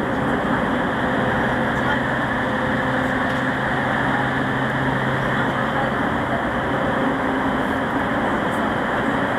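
Running noise of a JR East 209 series 500-subseries electric train with GTO-inverter traction, heard from inside a motor car at a steady speed. A constant rumble of wheels on rail carries a steady motor and gear hum with no rise or fall in pitch.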